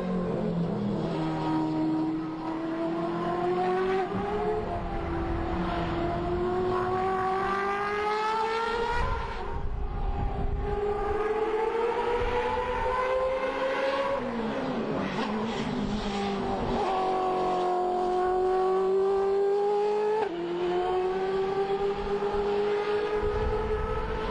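2006 Mercedes-AMG DTM race car's 4-litre V8 engine under hard acceleration. The pitch climbs steadily through each gear and drops sharply at each upshift, several times over.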